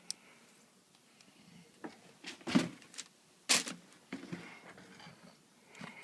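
Scattered clicks and knocks of an iPad, its parts and hand tools being handled on a work surface. The loudest two come about two and a half and three and a half seconds in.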